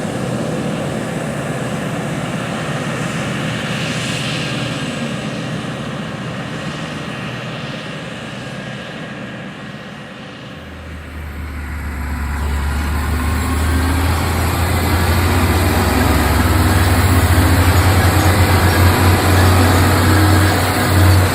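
Heavy harvest machinery running in a wheat field. The engine sound fades for a while, then from about halfway a deep engine drone comes in and grows steadily louder, as a machine draws near or works under load.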